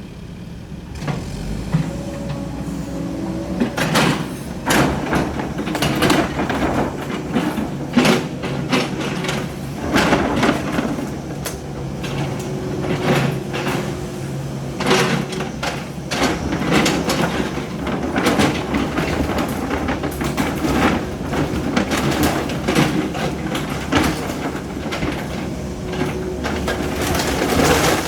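Demolition machinery breaking up a building: a diesel engine running steadily under repeated crashes and cracks of splintering wood and debris.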